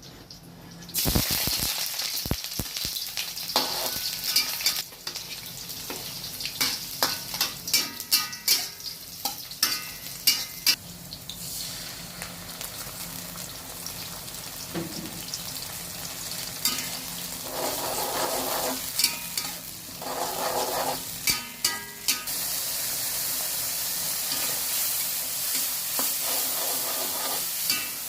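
Cincalok, egg and chilli frying and sizzling in a hot pan, with a spatula scraping and clacking against the pan as the mixture is stirred. Near the end the stirring lets up and a steady sizzle remains.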